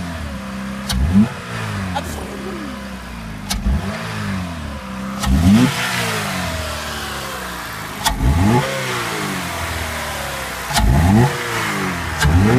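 GM 2.2 L L61 Ecotec inline-four idling with its air intake removed and revved in quick throttle blips a few seconds apart, each a sharp rise in pitch that falls back to idle.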